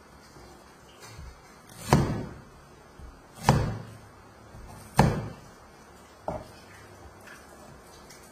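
Kitchen knife cutting through raw taro and knocking down onto a plastic cutting board: three loud thuds about a second and a half apart, with a few lighter taps between them.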